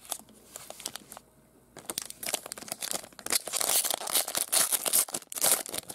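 Wrapper of a 2021 Panini Mosaic baseball card pack crinkling and tearing as it is opened. The crackle starts about two seconds in and runs as a dense flurry until near the end.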